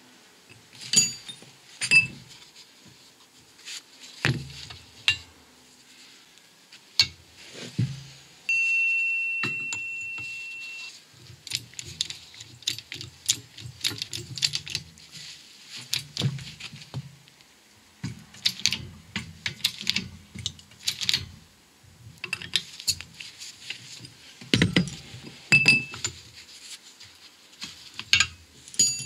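Metal clinks and knocks from a hand-worked hydraulic shop press and its steel bushes while a new wheel bearing is pressed into a steel hub carrier. One ringing metallic ping about eight and a half seconds in fades away over a couple of seconds.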